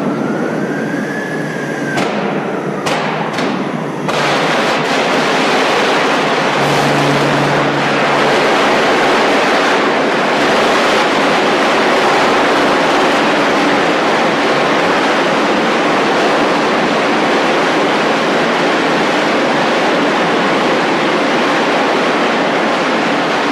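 Electric arc furnace arcing: a loud, continuous crackling roar that sets in about four seconds in, after a few sharp cracks. Before that, a rising tone ends about two seconds in.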